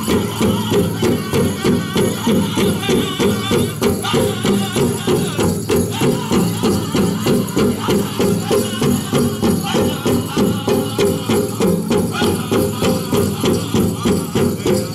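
Powwow drum group playing a chicken dance song: a big drum struck in an even beat of about three strokes a second under group singing, with a jingling of dancers' leg bells over it.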